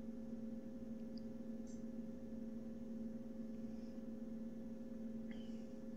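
Faint steady hum, two low tones held without change: background room tone.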